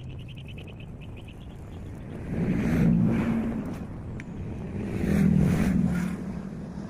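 Two motor vehicles passing by one after the other, each engine sound swelling up and fading away over about two seconds.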